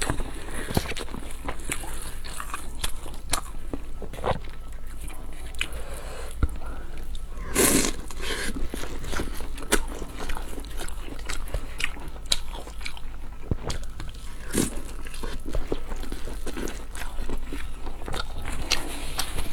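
Close-miked eating sounds: steady chewing and biting, with many small sharp mouth and food clicks. About eight seconds in there is one louder, longer rush of noise.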